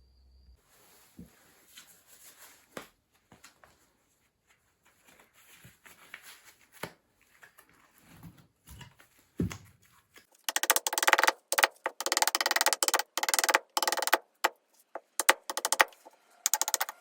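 A knife carving fatwood: a few faint taps and clicks, then from about ten seconds in, rapid, loud scraping strokes in quick runs with short pauses.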